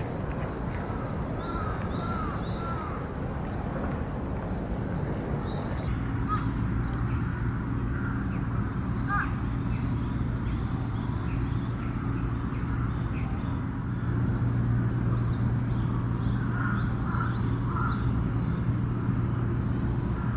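Outdoor ambience of birds: small birds chirping and crows cawing here and there, over a steady low rumble with a low hum that strengthens about six seconds in.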